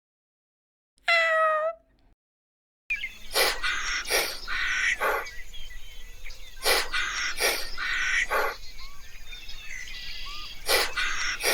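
Animal calls: a single call falling in pitch about a second in, then, after a short gap, a series of repeated calls in pairs from a different animal over steady outdoor background noise.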